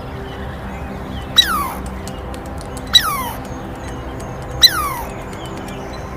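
An animal's short, sharp calls, three of them about a second and a half apart, each falling steeply in pitch, over a steady low drone.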